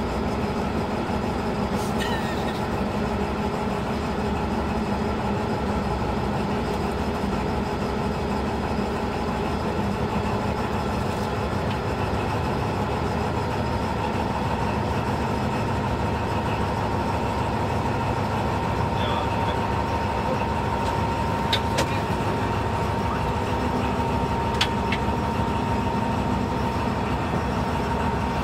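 V22 diesel shunting locomotive's engine running steadily as the locomotive rolls slowly along the works siding, heard from on board; a thin steady high tone joins about halfway through, and a few sharp clicks come near the end.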